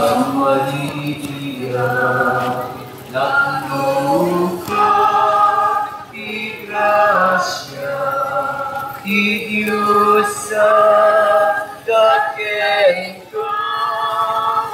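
A group of voices singing together in unison, held notes in phrases of a second or two with short breaks between them.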